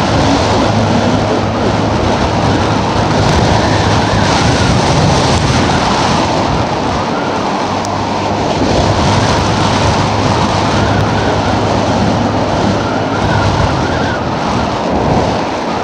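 Gas engine of a ridden vehicle droning steadily while moving, with a heavy rush of wind over the microphone.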